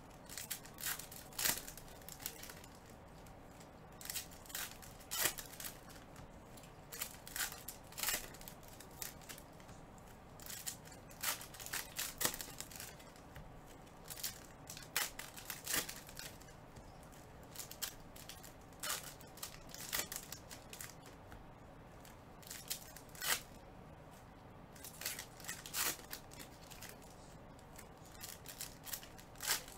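Foil wrappers of trading-card packs crinkling and tearing as the packs are opened, with the cards handled and slid against one another; irregular sharp crackles throughout.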